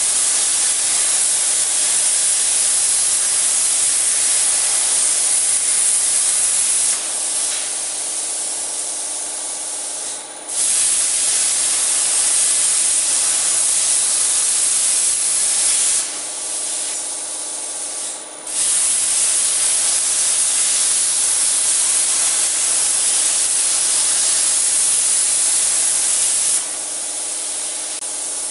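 Plasma torch of a portable CNC cutting machine cutting steel plate: a loud, steady hiss. It drops to a softer hiss twice, about seven and sixteen seconds in, each time for two or three seconds, and again near the end.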